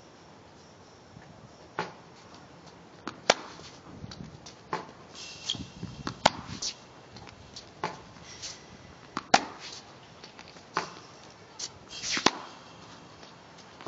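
Tennis balls struck with a racket on a hard court: a sharp pop about every three seconds, with softer knocks of the ball bouncing in between and the scuff of footwork.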